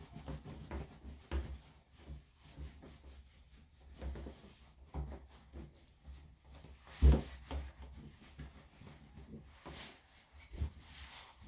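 Terry towel rubbing and scrubbing a wet dog's coat, an irregular soft rustling with one sharp thump about seven seconds in.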